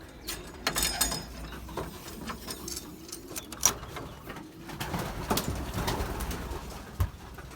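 Racing pigeons cooing in their loft, with scattered short rustles and knocks and one sharper knock a little past halfway.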